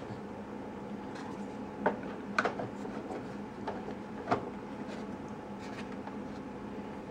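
A few light clicks and knocks of small parts being handled, about four in all, the loudest about four seconds in, over a steady low hum.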